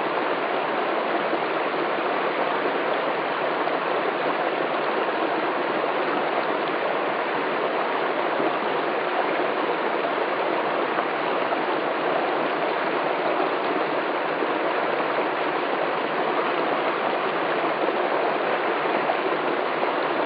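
Small stream running steadily over rocks: an even, unbroken rush of water.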